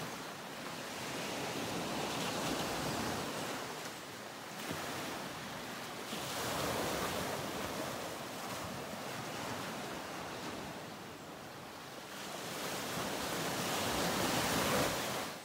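Ocean surf: waves washing in, the rushing noise swelling and easing every few seconds.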